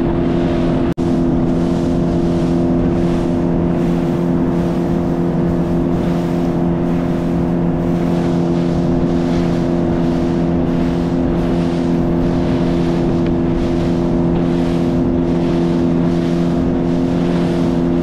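Motorboat engine running at a steady, unchanging speed, a constant low hum over a rushing noise, as the boat travels out to sea.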